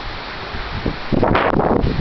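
Storm wind gusting through trees, leaves rustling and the wind buffeting the microphone with a low rumble. It eases briefly, then a fresh gust surges in about a second in.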